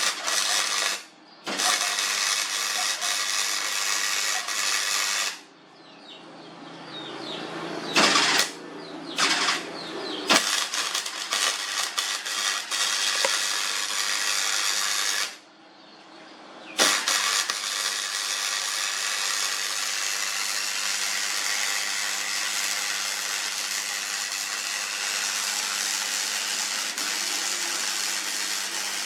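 Electric arc welding: a steady, loud crackle and sizzle of the welding arc in several runs, each broken off by a short pause, the last run about twelve seconds long.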